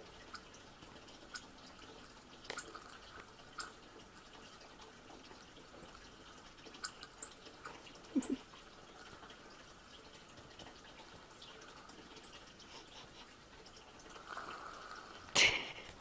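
Faint, scattered short ticks and chips from a bird-feeder video playing through laptop speakers, over a faint steady hum. One loud sharp knock near the end.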